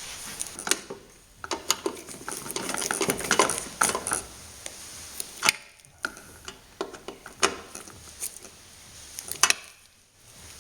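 Irregular clinks, taps and clatter of small hard objects being handled, busiest about three seconds in.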